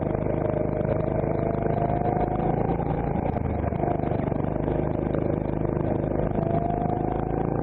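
CRG Centurion rental kart's engine running, heard from the kart itself. The engine note holds fairly steady through slow corners, sags a little past the middle, then climbs again near the end as the kart accelerates.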